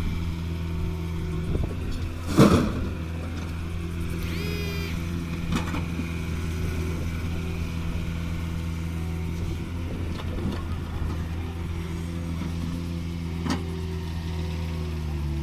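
Tracked excavator's diesel engine running steadily while it digs. A loud knock comes about two and a half seconds in, a brief high squeal about four seconds in, and a few fainter knocks after that.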